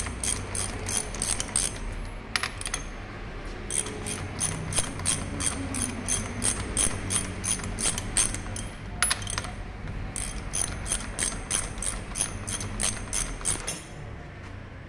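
A ratchet wrench clicking in quick runs, about four clicks a second, working on a Mercedes diesel injection pump. The runs pause briefly about two seconds in and about nine seconds in, and stop near the end.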